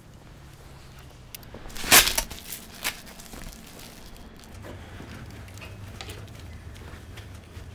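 Close rustling and handling sounds of clothing as someone gets dressed. A sharp rustle comes about two seconds in and a smaller one about a second later, over a low steady hum.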